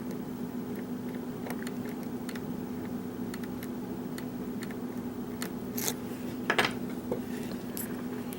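Small metal clicks and scrapes of a lock pick working the pins of a Schlage pin-tumbler lock, with a couple of sharper clicks just past the middle, over a steady low hum.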